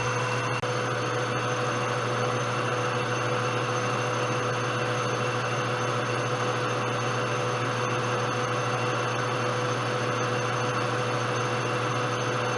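Metal lathe running steadily while turning Delrin handles: a constant low hum with a few steady high whines over it.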